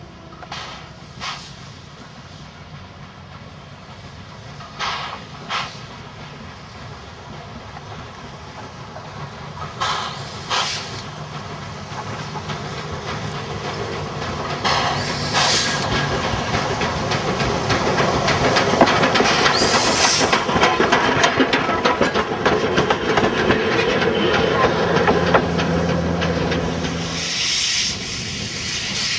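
Chinese steam locomotive drawing nearer. At first there are a few paired knocks; then hissing steam and wheel-and-rod clatter grow steadily louder over about fifteen seconds. Near the end the sound shifts to an engine close by, hissing steam.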